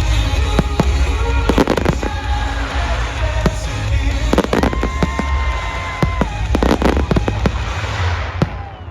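Fireworks going off in quick succession, many sharp bangs and crackles, with music playing underneath. About halfway through a steady two-note whistle is held for over a second, and one last loud crack comes just before the sound falls away near the end.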